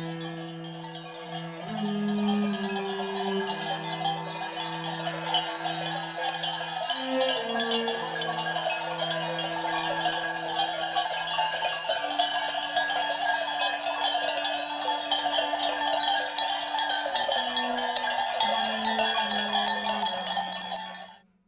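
Many bells on a grazing flock of sheep and goats clinking and clanking continuously, with a slow line of held low notes beneath them. It all cuts off suddenly near the end.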